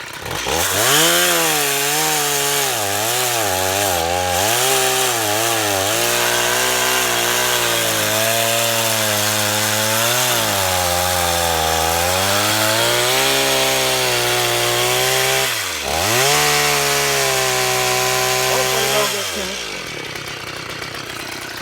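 Stihl MS 170 two-stroke chainsaw revved up and cutting through an ash log, its pitch sagging and recovering as the chain bites under load. Near the end the throttle is let off briefly, then it comes back up, and at the end it drops back to idle.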